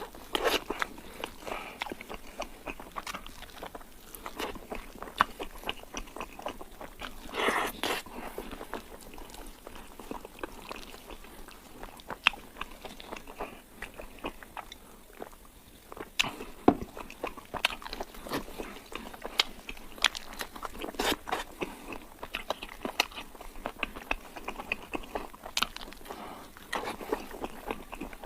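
Close-miked eating sounds of a person chewing Kayseri yağlama: wet chewing and many sharp, irregular mouth clicks.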